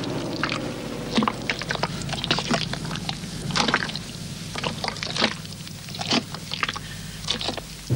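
Wet mud squelching and sloshing in many short, irregular splats, as wheels churn through deep mud.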